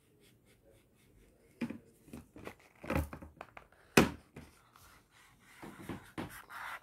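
Knocks and rustles of paper and a hand-held phone being handled, with a sharp knock about four seconds in as the picture jolts.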